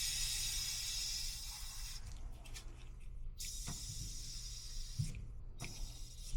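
Hiss of pressurized gas blown through a nozzle into an air conditioner's clogged condensate drain line to clear it. One blast stops about two seconds in, a second shorter blast follows from about three and a half to five seconds, and a few light clicks come after.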